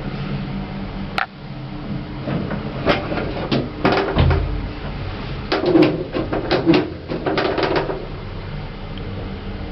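Service lift running, with a sharp click about a second in, then a run of clattering knocks and rattles from its mechanism and doors.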